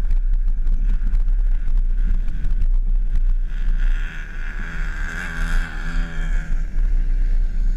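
Open-top Jeep Wrangler JK driving over sand dunes: heavy wind buffeting on the microphone over the running engine. Midway a pitched engine note wavers up and down for a few seconds, then fades back into the wind.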